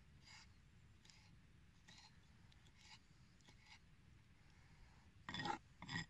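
Kitchen knife chopping fresh dill on a wooden cutting board: soft, faint cuts about once a second, then a louder run of quicker chops near the end.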